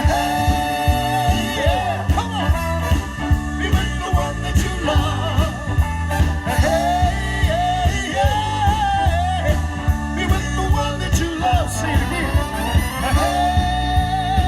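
Band music with a lead vocal line over a steady drum beat of about two hits a second.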